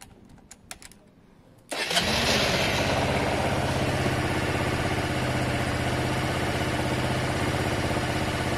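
Honda Varadero 125's V-twin engine started warm on the button: a few faint clicks, then it fires about two seconds in, its pitch briefly rising and falling as it catches, and settles into a steady idle.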